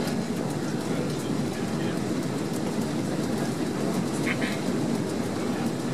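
Steady cabin noise inside a Boeing 767-300ER in flight: a low, even rush of engine and airflow noise. A brief faint higher sound comes about four and a half seconds in.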